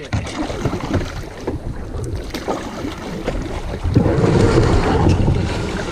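Kayak under way: water noise from the paddling and the hull, scattered knocks, and wind buffeting the microphone. The noise grows louder and rougher for about a second and a half around four seconds in.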